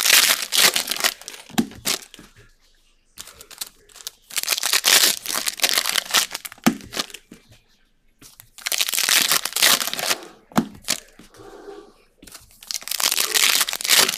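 Trading-card pack wrappers being torn open and crinkled by hand, in four loud bursts of crinkling with short pauses between.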